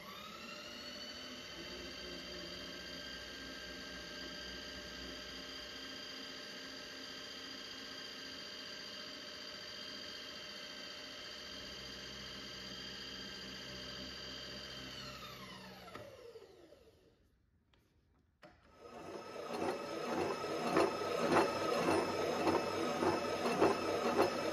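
Line boring machine's electric motor running with a steady whine, which winds down and stops about 15 s in. A couple of seconds later the boring bar starts cutting through the steel bore with a loud, rough, rapid rattle: tool chatter from harmonics building up in the bar, which the operator puts down to the support bearings being too far apart.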